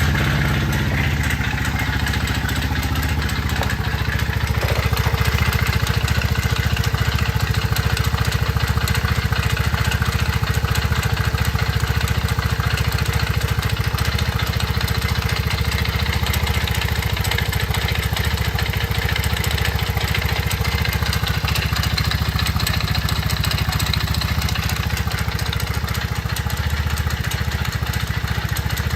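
Honda Monkey FI's small single-cylinder four-stroke engine idling steadily just after starting. It runs with freshly replaced tappets and rocker arms and is being listened to for an abnormal engine noise.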